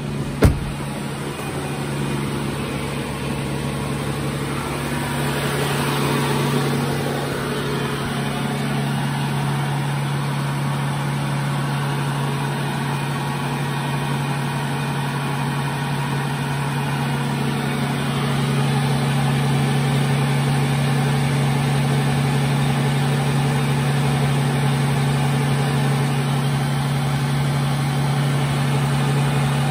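Bentley Continental Flying Spur's engine idling steadily, a low even hum that grows a little louder about 18 seconds in. A single thump sounds about half a second in.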